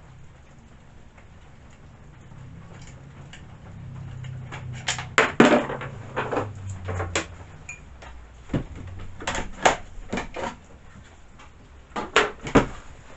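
Irregular clicks and knocks of the new chainsaw and its parts being handled and set down, starting about four seconds in and loudest near the middle and near the end, over a low steady hum.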